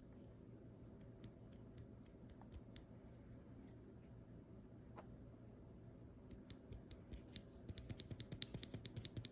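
Faint, light clicks and snips of hands handling the packaging of C3 Kiwi keyboard switches, scattered at first and turning into a quick run of clicks near the end.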